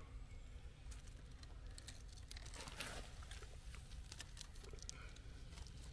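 Faint rustling of leaves and twigs with scattered small clicks and snaps as hands pick oyster mushrooms off a mossy log. A slightly louder rustle comes about three seconds in.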